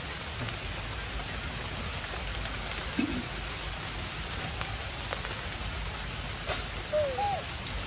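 A steady hiss of outdoor noise with a few faint clicks, and two short squeaks about seven seconds in.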